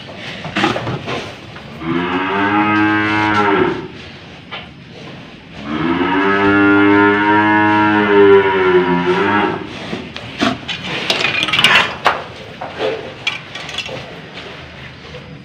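An old cow moos twice in long, drawn-out calls, the second longer, while a nose rope is being fitted through its nose. Short knocks and clatters from the handling follow near the end.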